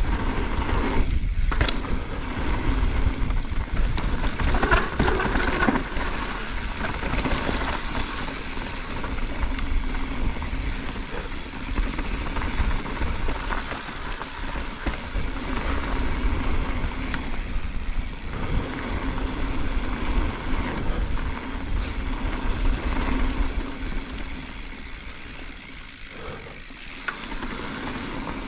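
Mountain bike riding fast down a dirt trail: a continuous rush of wind on the camera microphone and tyres rolling over dirt and leaves, with the bike rattling over bumps. It eases a little near the end.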